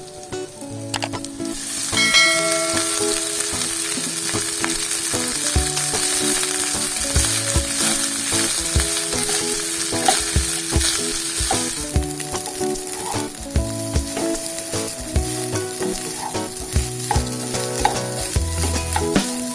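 Food sizzling in hot oil in a pan, the sizzle rising sharply about two seconds in, with a spatula stirring and scraping against the pan in many short clicks.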